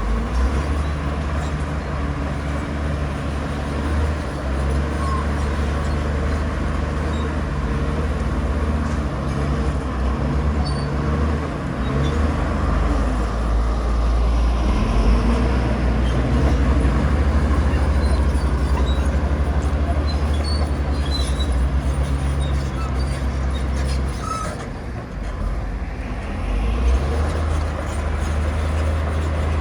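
Diesel engine of heavy earthmoving machinery running with a steady deep rumble. It eases off briefly about 24 seconds in, then picks up again.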